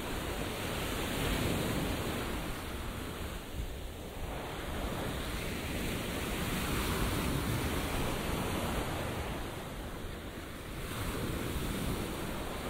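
Sea surf breaking and washing up on a beach, the wash swelling and easing every few seconds, with wind rumbling on the microphone.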